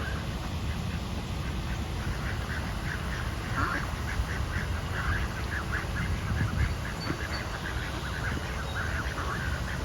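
Mallard ducks quacking in a rapid run of short calls starting about two seconds in, over a steady low rumble.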